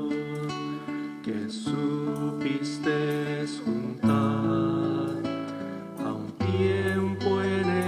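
Instrumental music: an acoustic guitar playing slow chords, each held for a second or two before the next.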